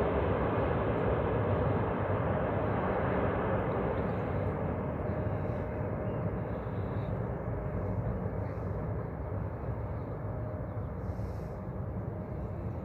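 Jet engines of an Iberia Airbus A330 on final approach, landing gear down, their rumble fading steadily as the airliner flies away toward the runway, with a steady hum running through the noise.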